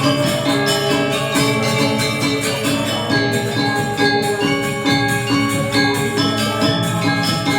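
Balinese gamelan ensemble playing: bright struck metallophone notes in a quick, even run, with many tones sounding together.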